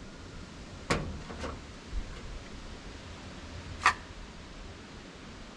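A few sharp knocks or clicks: one about a second in, a weaker one half a second later, a small one at about two seconds, and the loudest near four seconds in.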